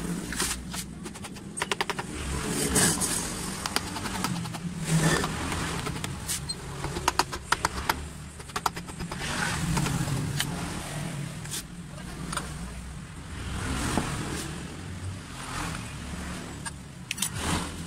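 Hand-tool clicks, metal clinks and scraping from the cylinder barrel of a Kawasaki Ninja RR two-stroke engine being loosened and worked off the crankcase, leaving the piston bare. Sharp knocks and quick runs of ticks come in clusters, with a steady low hum underneath.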